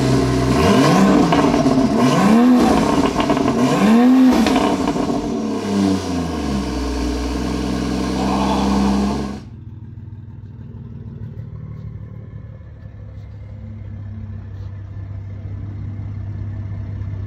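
Toyota GR Supra's turbocharged straight-six, fitted with a full titanium exhaust, revved three times, its pitch sweeping up and falling back each time, then running on loudly until it cuts off about nine seconds in. A much fainter steady low hum follows.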